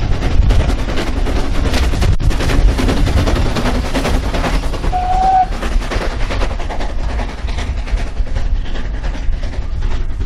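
Saddle tank steam locomotive working hard with a coach train, its sharp exhaust beats coming in quick succession over a low rumble. A short, steady high tone sounds about halfway through.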